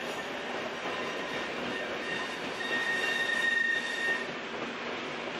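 NS Koploper (ICM) electric multiple unit rolling over the tracks with a steady rumble. Its wheels give a high squeal from about two and a half seconds in, lasting about a second and a half.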